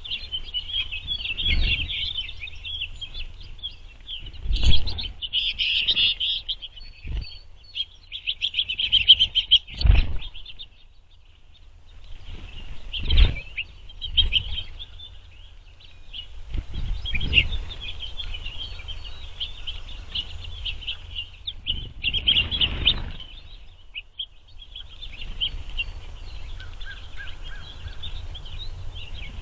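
A mixed flock of finches twittering and chattering almost without pause, with several sharp knocks and thumps among the calls, the loudest about 5, 10 and 13 seconds in.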